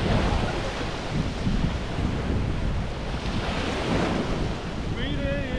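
Sea waves washing onto the beach, with wind buffeting the microphone. A short wavering high-pitched call sounds near the end.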